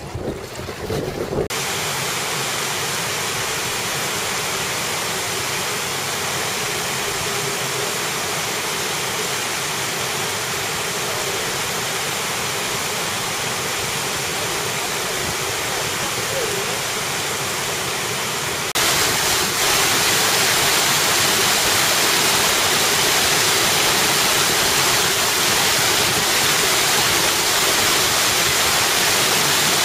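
Gefion Fountain's water cascading and splashing down its stepped stone basins, a steady rushing that turns louder about two-thirds of the way through. For the first second or so, wind buffets the microphone.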